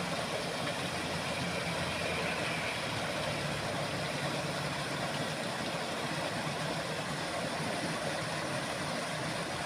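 Steady rush of water pouring over a low concrete weir and churning down a drainage canal, with a faint low hum beneath it.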